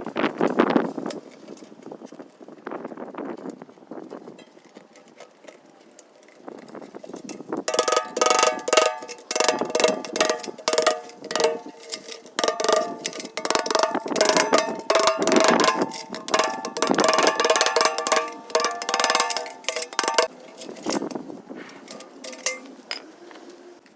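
A metal pail can being worked with rapid clanks that set its sheet-metal body ringing. This goes on from about eight seconds in to about twenty, with quieter handling noises before it.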